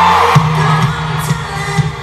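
Live pop concert music heard from the audience over an arena sound system: a held note drops away just after the start, then the band carries on with a steady beat, with crowd noise underneath.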